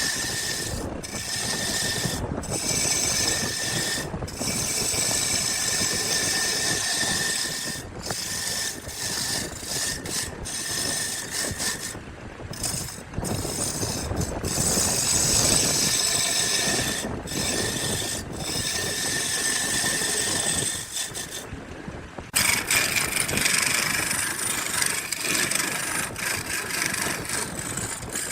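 Small workshop power tool running and working wood, a steady machine noise broken by several short edits, changing abruptly about three quarters of the way through.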